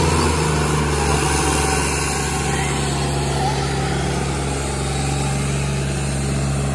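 Diesel tractor engines running hard and steady under heavy load, two tractors chained back to back pulling against each other in a tug-of-war.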